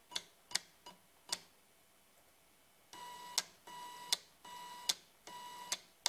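Old printer's small DC motor, driven by an Arduino through pulse width modulation, whining at a steady pitch in short runs of under half a second, each run ending in a click, repeating about every 0.8 s from about halfway in. Before that, a few separate clicks. The PWM holds the motor's speed down so the encoder pulses are not skipped.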